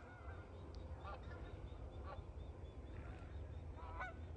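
Distant Canada geese honking: a few scattered faint calls, with a short cluster about four seconds in, over a low steady rumble.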